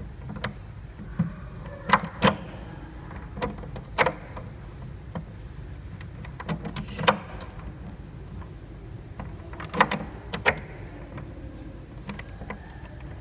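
Irregular sharp metal clicks and clacks from the fast-lock lever and pin on an LED screen cabinet being worked by hand, about a dozen in all, with a steady low hum beneath.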